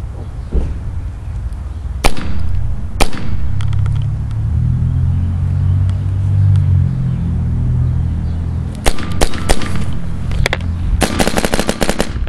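Bob Long paintball marker firing on semi-automatic: two single shots about a second apart, a short string of shots about three quarters of the way in, then a fast string of shots near the end. A low rumble fills the gap between them.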